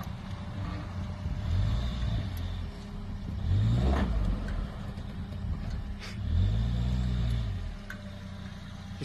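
Daihatsu Terios 4x4's engine revving hard and easing off three times as it climbs a soft sandy rise, its wheels spinning in the loose sand.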